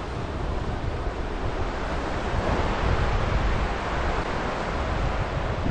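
Ocean surf washing on the beach, a steady wash of noise that swells about halfway through, with wind buffeting the microphone.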